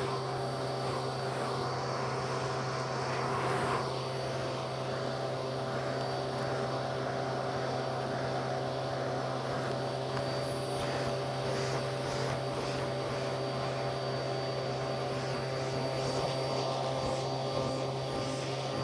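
Vacuum cleaner motor running with a steady drone as its hose wand is worked over a shaggy rug. A few faint crackles of debris are sucked up about ten seconds in.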